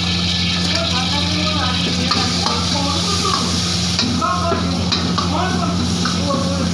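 Chopped garlic sizzling as it fries in hot oil in a wok, with a few light clicks about four and five seconds in, over the steady low hum of the gas wok burner.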